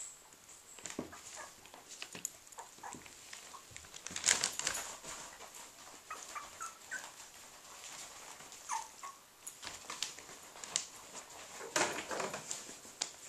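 Three-week-old puppies give occasional short, falling whimpers and squeaks. Paws scratch and rustle on the quilted pad and newspaper of the whelping pen.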